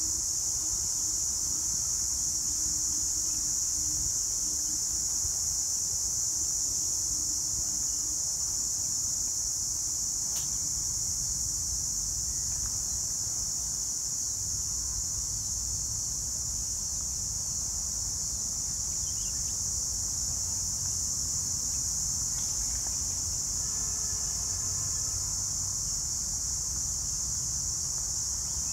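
Steady, high-pitched insect chorus, the loudest sound throughout, with a low rumble underneath.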